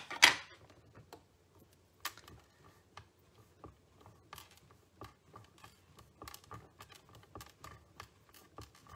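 Handling of a rubber stamp and stamping platform: a sharp clack about a quarter second in and a smaller click about two seconds in, then light taps and rustling as hands press the stamp down onto the paper.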